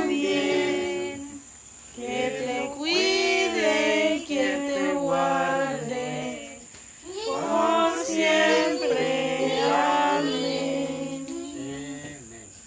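A group of people singing a birthday song together in Spanish, in three long phrases with short breaks between them, trailing off near the end.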